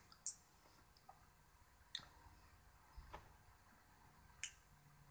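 Faint, sharp clicks of pliers gripping and bending a pin on a male breakaway header: four short ticks, one every second or so, with near silence between.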